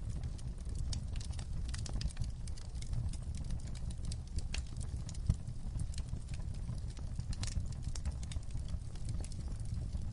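Fire crackling steadily over a low rumble, with irregular sharp pops and snaps and one louder pop about five seconds in.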